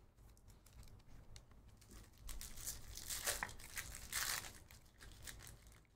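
Foil wrapper of a 2023 Topps Chrome baseball card pack being torn open and crinkled by hand, loudest from about two to four and a half seconds in.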